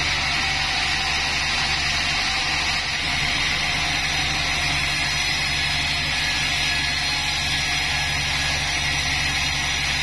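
Pandan Taiwan Bandsaw36 sawmill running steadily: a low, even machine hum with a hiss above it, with no distinct cutting strokes or changes.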